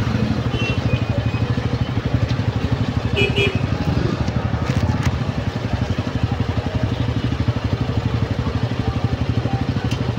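Motorcycle engine running steadily at low revs, a rapid even pulse with no change in speed.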